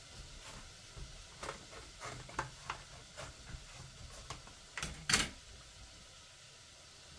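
A run of about a dozen short, irregular clicks and knocks, the loudest one about five seconds in.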